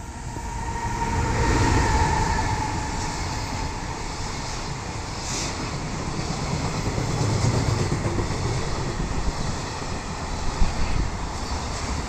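An EF210 electric freight locomotive passes at speed, loudest about two seconds in. A long train of container wagons follows, rumbling steadily past with scattered clacks of wheels over the rail joints.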